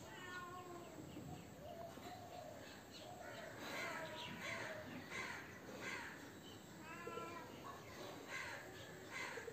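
Crows cawing: a string of short, harsh calls, some coming in quick runs.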